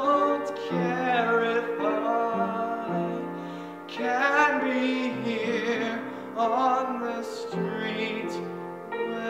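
A man singing with vibrato to piano accompaniment; his line dips briefly just before the middle and comes back in with a new phrase.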